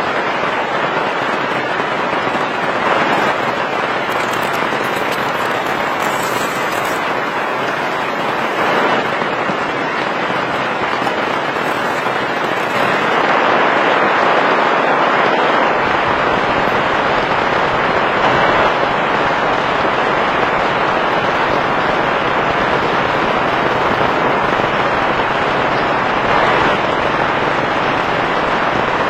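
Heavy rain falling steadily, a dense crackling hiss of drops that grows a little louder about halfway through.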